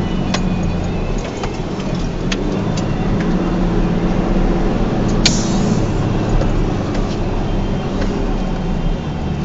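Four-wheel-drive's engine running steadily in low gear on a rough dirt track, heard from inside the cabin, with scattered knocks and rattles over the bumps. The sharpest knock comes about five seconds in.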